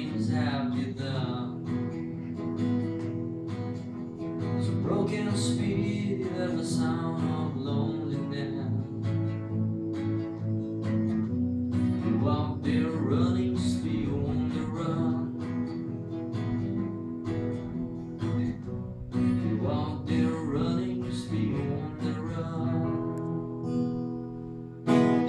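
Acoustic guitar playing the song's instrumental close, strumming and picking chords, with one loud final strum near the end.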